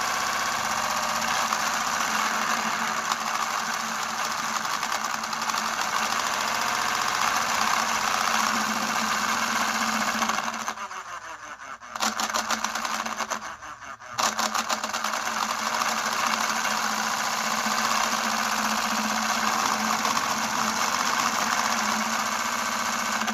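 Small brushed DC motor running, turning the drive shaft, differential gears and wheels of a homemade model truck chassis: a steady whirring buzz. It drops away briefly twice in the middle and comes back each time.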